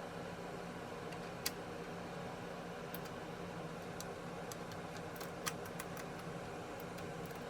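Steady room hum with a few faint, sharp clicks of small computer parts and screws being handled during a PC build.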